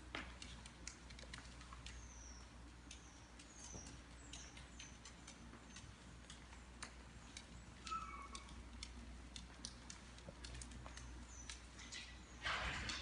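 Faint, scattered clicking and pattering of a small dog's claws and sandalled footsteps on a hard tiled floor, with a few short high chirps. A brief scuffing rush near the end is the loudest sound.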